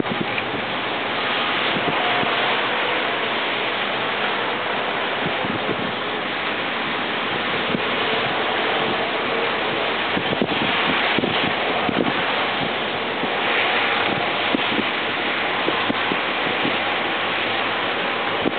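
Steady rushing noise of wind on the microphone, with gusty low buffets, over the faint distant sound of road traffic.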